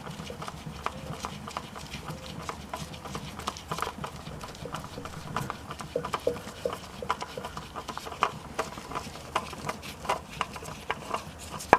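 Irregular small clicks and taps, several a second, as an oil filter is worked loose by hand and tool under the car.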